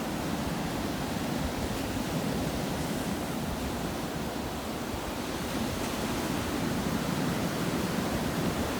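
Atlantic surf rolling in and breaking on the beach: a steady rushing wash of waves that swells and eases slightly in level.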